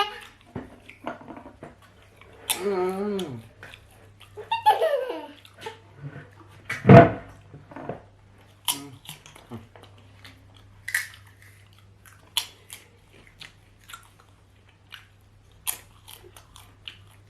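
Close-up mouth sounds of eating potatoes: chewing, crunching and lip smacks as scattered short clicks, with a hummed "hmm" or two. One loud thump about seven seconds in.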